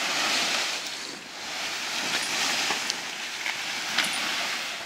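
A felled banana tree dragged over grass and bare ground by an elephant: its dry leaves and stem rustle and scrape in two long swells, with a few sharp crackles in the second half.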